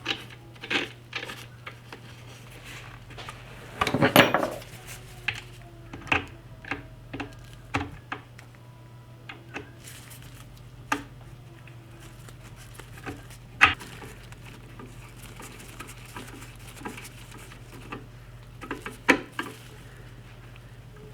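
Scattered metallic clicks and clinks of Mosin-Nagant rifle parts being handled and fitted, the front cap and its screw going back onto the stock, with a louder clatter about four seconds in. A steady low hum runs underneath.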